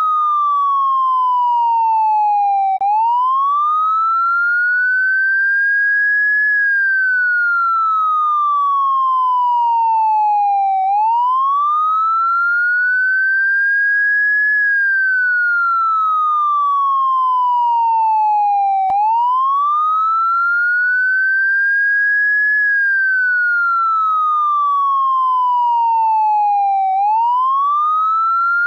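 Electronic police car siren sounding a slow wail: a clean, steady-loud tone sweeps up quickly, eases off as it nears the top, then slides steadily back down, each rise and fall taking about eight seconds and repeating evenly.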